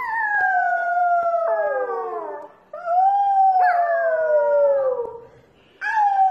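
Puppy howling in long, falling notes. One howl trails off about two and a half seconds in, a second starts just after it and fades out about five seconds in, and a third begins near the end.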